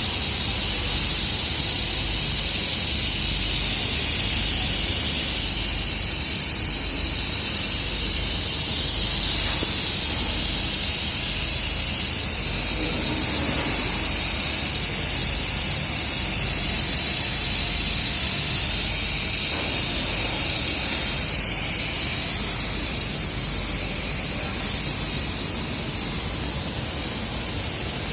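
500W robotic fiber laser welding machine running, giving a steady, high hiss that eases slightly near the end.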